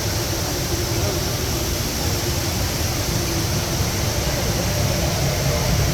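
Steady rushing roar of the Rain Vortex indoor waterfall, with a murmur of voices from people around it.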